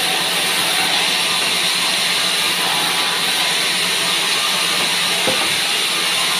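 Large vertical bandsaw running as pine boards are fed through the blade: a steady hiss with a low hum underneath.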